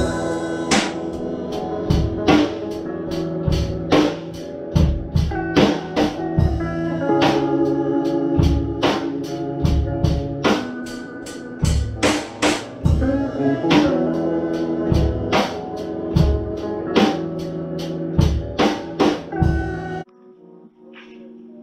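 Rock music with a drum kit beat under sustained electric guitar chords. The music cuts off suddenly near the end, leaving faint held notes.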